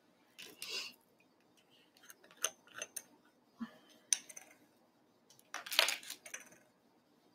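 Scattered light clicks, taps and rustles of small craft supplies being handled on a desk, with a slightly longer rustling clatter a little past the middle.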